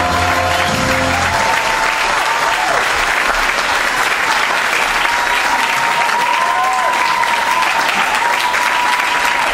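Backing music ends about a second in, and the audience applauds, with a high held call near the end riding over the clapping.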